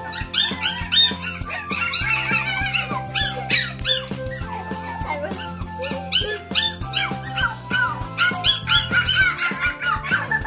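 Pomeranian puppy yipping and squeaking, many short high-pitched calls in quick succession, over background music.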